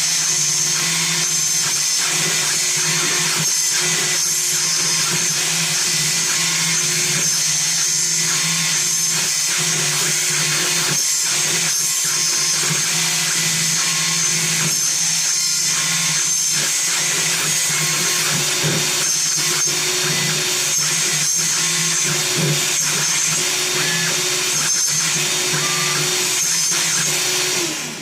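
CNC router spindle milling a small wooden keycap: a steady high whine with a rough cutting noise, its pitch falling and the sound dropping away at the very end as it winds down.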